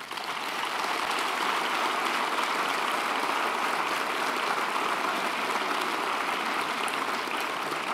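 Large auditorium audience of several hundred applauding: dense, steady clapping that breaks out at once and holds.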